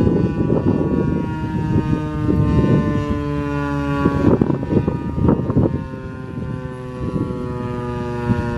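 American Signal T-128 outdoor warning siren winding down at the end of its Alert test signal, its tone falling slowly in pitch. Gusty wind rumbles on the microphone throughout.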